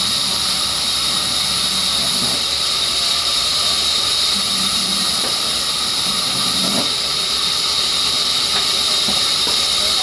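Vertical band saw ripping planks of wet rain tree wood: a loud, steady hiss of the blade cutting.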